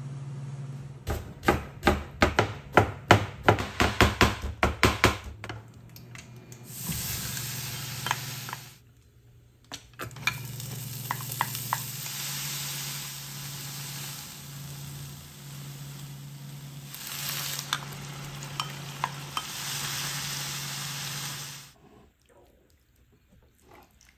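A few seconds of rapid knocking, then sliced leek and chicken sizzling in a frying pan as a wooden spatula stirs them, with occasional taps; the sizzling stops near the end.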